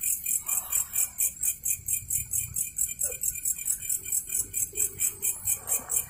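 Night insects chirping in a fast, very regular high-pitched pulse, about seven chirps a second, with faint low murmuring beneath.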